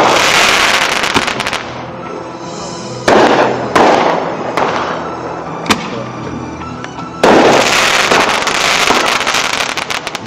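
Consumer artillery shells from a World Class Instigator kit firing and bursting overhead. Loud booms come about three seconds in, again just after, and around seven seconds, each fading away, with a single sharp crack near six seconds. A run of crackles follows near the end.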